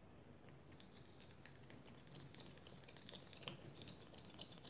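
Faint clicking and scraping of a plastic fork stirring in a small plastic cup of colouring, many quick light ticks with one louder click about three and a half seconds in.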